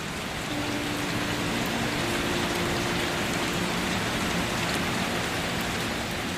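Steady rain falling, an even hiss of many drops, with a few soft held background music notes underneath.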